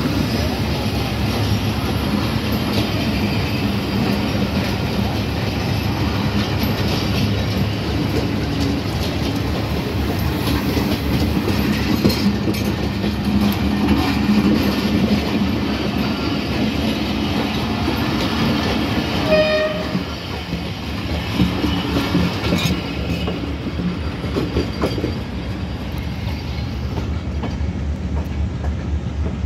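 Pakistan Railways passenger coaches of a departing train rolling past at close range, a steady rumble of wheels running over the rails. A short train horn sounds about twenty seconds in, and after it the rolling noise drops a little as the last coaches go by.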